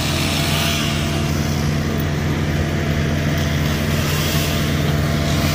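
Engine of heavy land-clearing equipment running steadily at a constant speed, an even low drone with no change in load.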